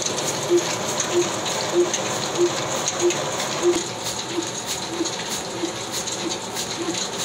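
Old Ruston Hornsby diesel engine running at slow speed under load, driving a cotton-opening machine: an even beat of short thumps about one and a half per second over the steady whirring clatter of the machine. The beat grows fainter after about four seconds.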